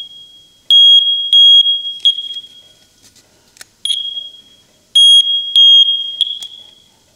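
First Alert smoke detector's piezo horn, powered by a 9-volt battery held to its bare circuit board, sounding high-pitched beeps in two groups of three with a single beep between them, some trailing off instead of cutting cleanly. The detector is faulty: it beeps continually with no smoke present.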